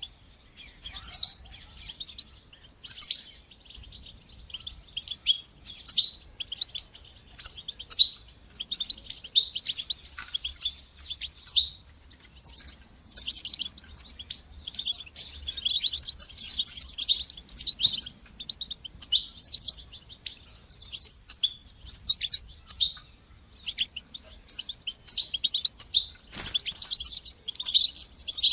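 European goldfinch song: a fast, continuous run of high chirps and twittering trills with brief pauses, the kind of 'tit-tit' and 'sis-sis' phrases used to train young goldfinches to sing. A short knock sounds near the end.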